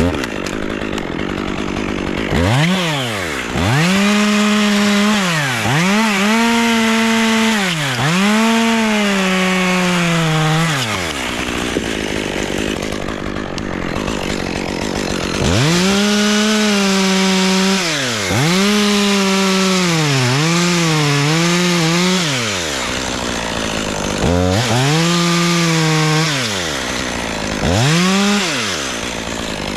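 Two-stroke chainsaw revving up and cutting wood in several spells. The engine pitch sags and recovers as the chain bites under load, and it drops back to a low idle between cuts.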